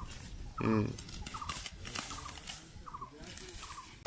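Peanut plants rustling as they are pulled up by hand. Poultry calls in short repeated bursts through the rustling, with one louder, lower call about a second in.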